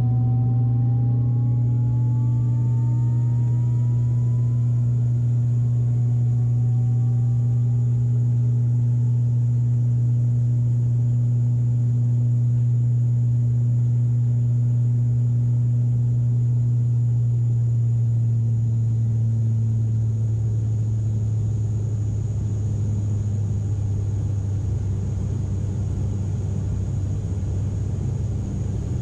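Cabin noise of an ATR turboprop airliner in the climb: a loud, steady propeller drone. About twenty seconds in, its pitch drops slightly and it gets a little quieter as the propeller speed is reduced after takeoff.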